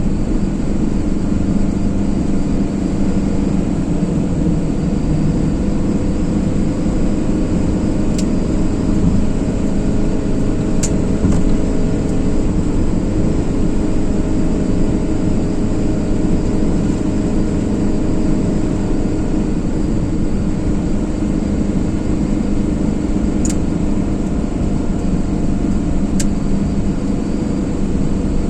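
Car being driven at a steady pace: continuous engine and road noise, with a few faint high ticks.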